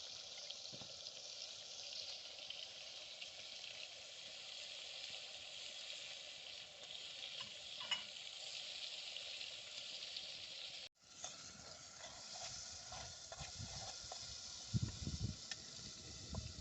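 Onions and tomatoes sizzling as they fry in oil in a cooking pot, a steady hiss that breaks off abruptly about eleven seconds in and then resumes, with low knocks of stirring near the end.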